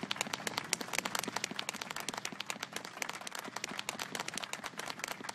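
A small group of people applauding: dense, irregular hand clapping.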